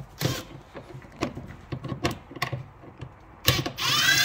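Gear-change cables and shifter mechanism under a Mini Cooper S being handled, giving a string of light clicks and knocks as the cable ends are worked to pull them off. Near the end a louder, longer noise with a squealing tone in it.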